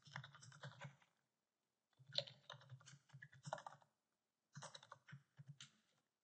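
Faint typing on a computer keyboard in three short bursts of keystrokes with pauses between them.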